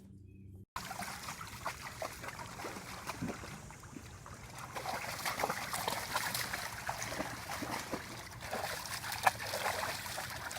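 Water sloshing, splashing and trickling in a foldable dog bath pool as a dog moves about in it, with many small irregular splashes. There is a brief cut to silence near the start.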